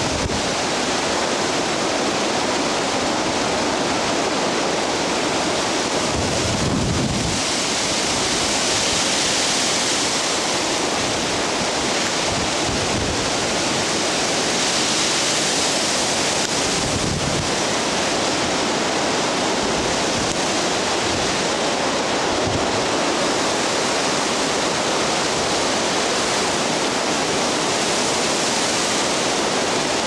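Hurricane-force wind blowing hard through thrashing trees: a loud, steady rushing noise, with a few low thumps of wind buffeting the microphone.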